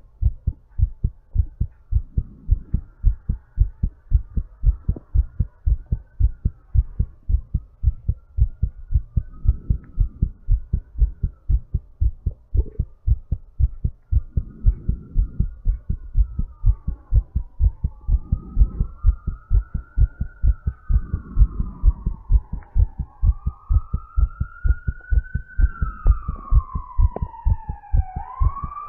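A person's heartbeat picked up close to the chest, with even, regular thumps throughout, while the body recovers from exercise. A soft rush of breath comes every few seconds. A siren wails up and down in pitch in the background and grows louder toward the end.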